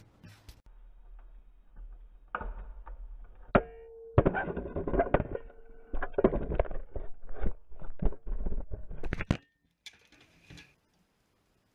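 Irregular knocks, scrapes and clatter as an empty oak wine barrel with steel hoops is handled and moved, busiest from about two seconds in until near the end. One knock early in the busy stretch leaves a brief ringing tone.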